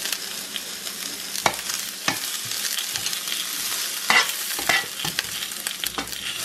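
Onion rings sizzling steadily in a little oil in a nonstick frying pan, with metal tongs clicking against the pan several times as the onions are turned, the sharpest clicks about four seconds in.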